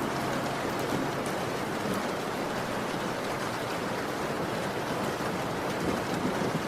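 Steady rain: an even hiss of falling rain with a few scattered drop ticks.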